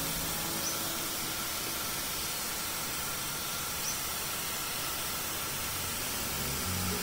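Steady hiss of a handheld sprayer misting water over potted nasturtium plants.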